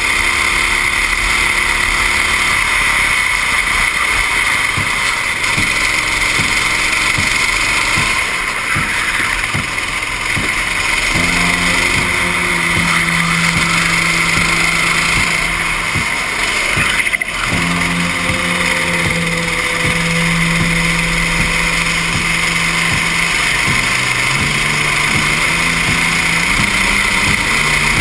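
Go-kart engine heard on board at racing speed under a steady rushing noise; the engine note holds steady for long stretches, falls off about three-quarters of the way through and climbs again near the end.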